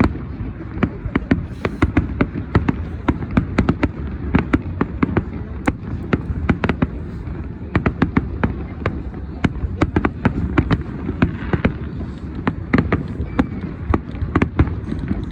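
A fireworks display: dense, irregular sharp bangs and crackles, several a second, over a continuous low rumble.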